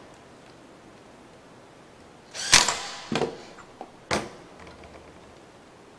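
A tow light bar being handled on a stone countertop: a loud knock about two and a half seconds in, a quick cluster of clicks just after, and another sharp knock about four seconds in.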